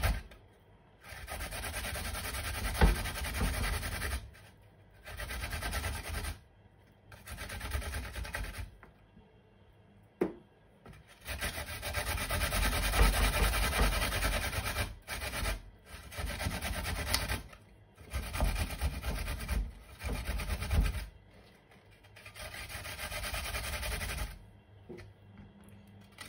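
Fresh ginger root being grated on a metal box grater: scraping rasps in runs of one to a few seconds, broken by short pauses as the piece is shifted in the hand.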